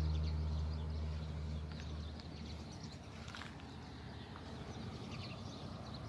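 Background music ending on a held low chord that fades out over the first two seconds, followed by faint outdoor background with scattered high chirps.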